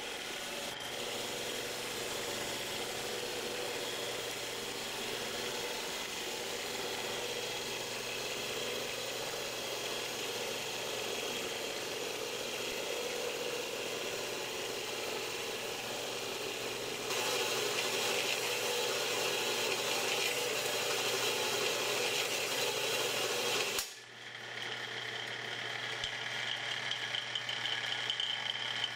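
Harbor Freight horizontal metal-cutting band saw running, its bi-metal blade cutting through a 4140 steel bar with a steady hum and rasp. The cutting gets louder about two-thirds of the way in, drops out briefly, then returns with a higher whine near the end.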